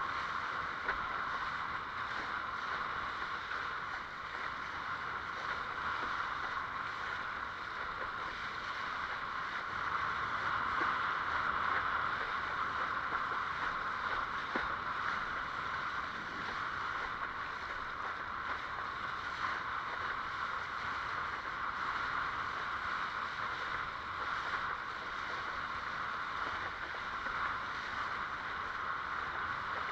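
Water rushing and spraying past the hull of a Fanatic Ultra Cat longboard windsurfer under sail: a steady hiss with no break.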